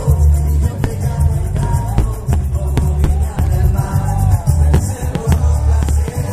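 Loud music with singing over a heavy, pulsing bass beat.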